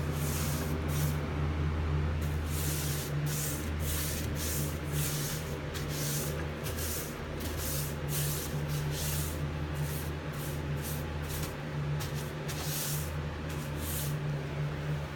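Paintbrush strokes swishing across wood as primer is brushed on, short irregular swipes a couple of times a second, over a steady low hum.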